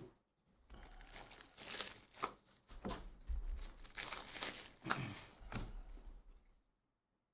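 Plastic wrapping and card packaging crinkling and tearing in irregular rustles with sharp crackles, as a trading card box or pack is torn open by hand.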